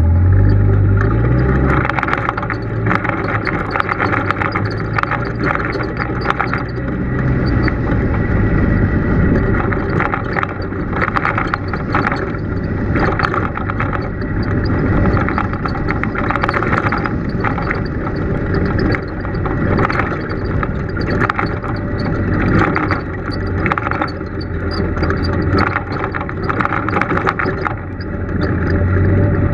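Polaris RZR side-by-side's engine running as it drives a rough dirt trail, picking up revs in the first second or two, with frequent knocks and rattles from the bumpy ground.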